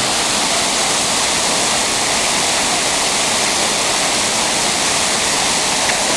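Steady, loud rushing of falling water, an even wash of sound with no breaks.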